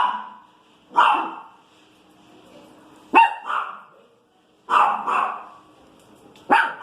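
Small pinscher barking in short, sharp yaps, singly and in pairs with pauses of a second or two between, about six barks in all: a dog reacting to noise out on the street.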